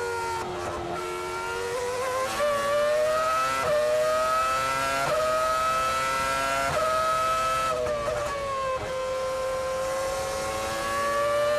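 Formula 1 car engine at high revs, heard from onboard. The pitch climbs through quick upshifts, drops sharply about eight seconds in as the car brakes and downshifts, then holds and slowly rises again.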